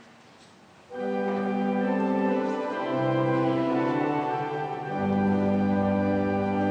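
Church organ starts about a second in, playing held chords that change every couple of seconds, the introduction to the responsorial psalm.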